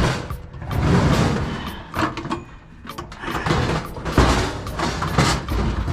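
Clanking knocks and scraping of metal objects being dragged and shifted, as a steel toaster oven is pulled out of a loaded truck bed of scrap. The bumps come irregularly, with the loudest knocks about four and five seconds in.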